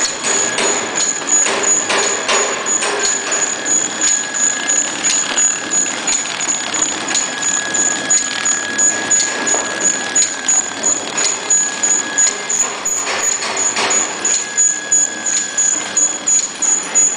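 Horizontal flow-wrap packing machine running, ticking steadily and evenly about three times a second with a high-pitched click at each stroke, over a faint steady whine.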